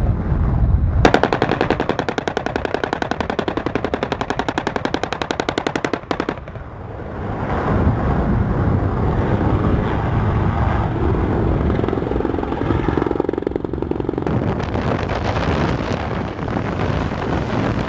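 M197 three-barrel 20 mm rotary cannon on an AH-1Z Viper firing one long, fast burst, starting about a second in and stopping about six seconds in. A steady rumble follows.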